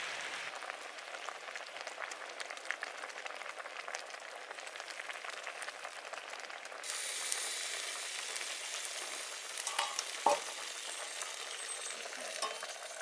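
Pot of gamjatang (pork-bone soup with dried radish greens) boiling, a dense crackling bubble that grows louder about seven seconds in, with a few sharper clicks near the ten-second mark.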